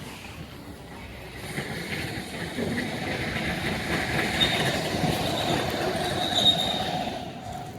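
Doosan Daewoo Solar 140 crawler excavator making machinery noise, with a high metallic squeal building in the second half.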